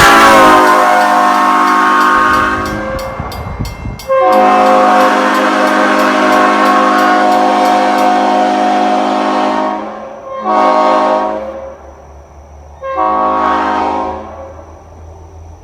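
Nathan Airchime P5 train horn, an old-cast P01235 with a P0 bell in place of the #4, sounding its five-note chord in blasts. A blast sags in pitch and dies away in the first seconds. Then comes one long blast, a short one and another blast.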